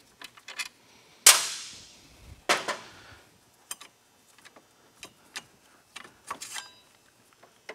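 Metal clanks from handling an ATV front brake caliper and tools: a loud sharp clank with a ringing tail about a second in, a second clank a little later, then a run of lighter metallic clicks and clinks, one of them ringing briefly near the end.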